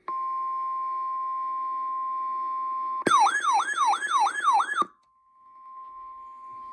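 NOAA Weather Radio's 1050 Hz warning alarm tone, a steady single beep-tone that signals a warning message is about to be broadcast. About three seconds in, a loud electronic warbling alarm sweeping up and down about four times a second cuts in for nearly two seconds, after which the steady tone carries on more faintly.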